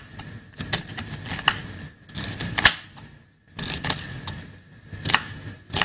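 Knife slicing through a red onion onto a wooden cutting board: a string of uneven sharp taps, a few a second, with a short pause about three seconds in.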